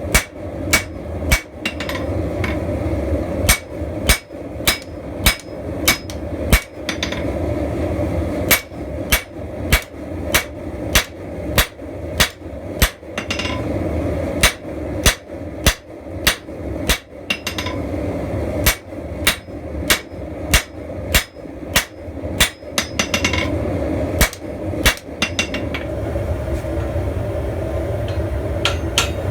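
Blacksmith's hammer striking hot steel on an anvil while forging a spear, in runs of about two blows a second broken by short pauses, each blow ringing. A steady background noise continues between the blows.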